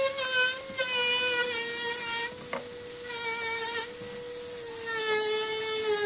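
Rotary handpiece spinning a rubber polishing wheel against the claws of a silver cluster ring, a steady high whine whose pitch sags slowly as the wheel is pressed on. It gets louder about five seconds in.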